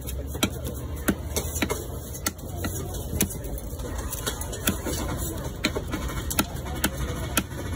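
A long knife chopping fish on a wooden block: sharp chops at an uneven pace, roughly two a second, over a steady low rumble.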